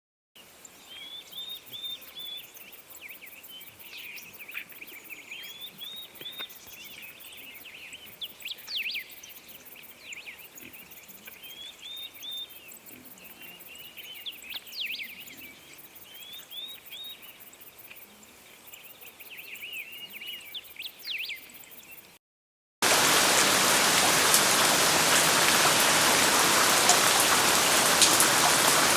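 Birds chirping in short repeated phrases over a faint hiss. About 22 seconds in it cuts to much louder, steady heavy rain.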